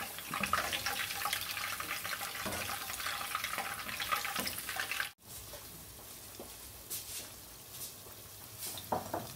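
Marinated chicken pieces deep-frying in hot oil in a kadai: a dense, steady sizzle full of fine crackles. About five seconds in the sound cuts off abruptly and comes back as a quieter sizzle with a few sharper pops.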